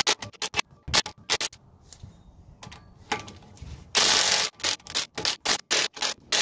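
Socket tool working the axle bolts on a Ford F350's front hub: a run of sharp metallic clicks, with a louder half-second burst about four seconds in and quicker clicks after it.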